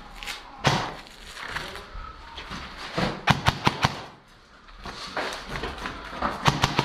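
Airsoft replica gunfire: sharp cracks in quick bursts of several shots, one about three seconds in and another near the end.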